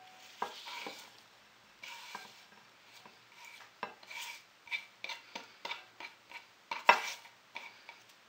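Sliced endive being moved by hand from one bowl into a glass bowl: irregular rustling and scraping with light knocks of dish against glass. The loudest knock comes about seven seconds in.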